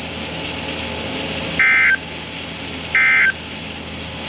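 NOAA Weather Radio EAS end-of-message SAME data bursts: two short digital tone bursts about 1.3 s apart over a steady radio hiss, signalling the end of the alert message.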